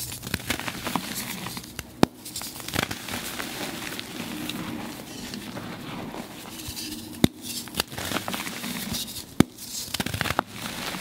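Reformed gym chalk being crushed by hand, crumbling with a continuous fine crackle and three sharp snaps.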